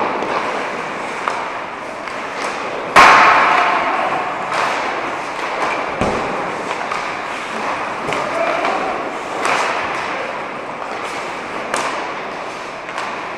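Ice hockey pucks and sticks knocking in an echoing rink. The loudest hit comes about three seconds in, followed by scattered sharper knocks of pucks against sticks and boards.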